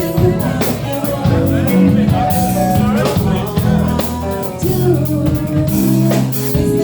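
Live band playing a blues-rock groove: electric guitar, bass and drum kit, with some singing.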